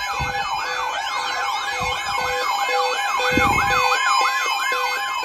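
Electronic siren-style alert tone: a fast yelp sweeping up and down about three times a second over a lower beep pulsing about twice a second, with a steady higher tone joining near the end. It is the attention signal ahead of a broadcast severe-weather warning.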